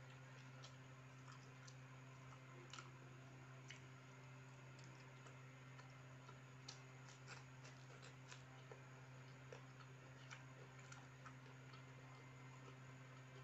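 Near silence with faint, irregularly spaced clicks and smacks of someone eating with the hands: chewing, lip smacks and fingers picking at rice on a plate, over a steady low hum.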